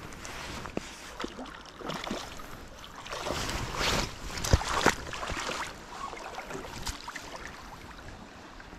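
Water splashing and rushing with scattered knocks, loudest in a few bursts about three to five seconds in.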